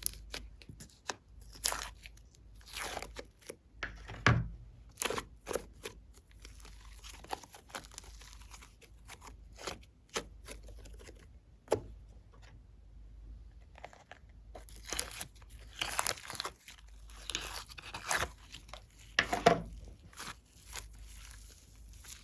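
Hands working slime: irregular sticky pops, clicks and crackly crinkling bursts, busiest about a quarter of the way in and again in the last third.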